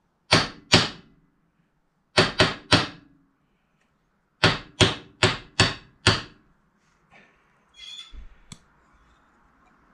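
Aluminium brake master cylinder body rapped against a steel bench vise to knock out its piston and spring: two sharp knocks, then three about two seconds in, then five about four and a half seconds in, with faint handling noise near the end.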